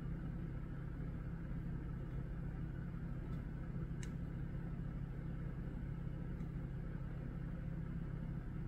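A steady low hum, with a faint click about four seconds in.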